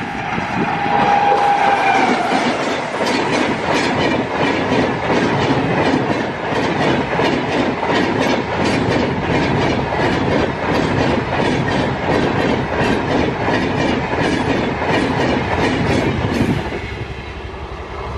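Horn of a WAP-7 electric locomotive, a steady tone that cuts off about two seconds in, followed by the express train passing at speed with a fast, regular clickety-clack of wheels over rail joints, which fades near the end.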